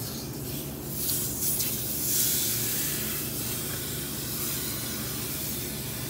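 Steady hissing at a freshly brazed joint on a freezer's copper refrigerant line, swelling for a couple of seconds after the start, over a low steady hum.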